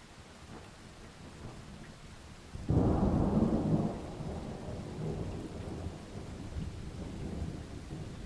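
Steady rain with a sudden clap of thunder about two and a half seconds in, loud for about a second, then rolling on as a lower, uneven rumble.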